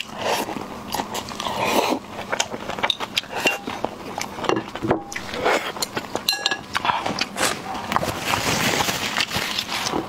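Close-miked eating sounds: a wet slurp as a sauce-soaked piece of food is sucked in, then moist chewing with many small smacking clicks, and another slurp near the end.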